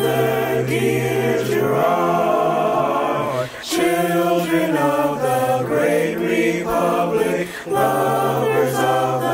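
Student choir singing a school alma mater hymn a cappella in parts, a virtual choir blended from separately recorded voices. It sings three long phrases with brief breaths between them.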